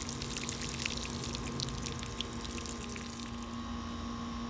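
Water sprinkling from a watering can's rose onto potting soil in a plastic pot: a hissing patter of droplets that stops about three and a half seconds in. A steady hum runs underneath.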